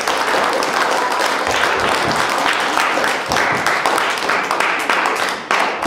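Audience applauding: many hands clapping in a dense, steady round.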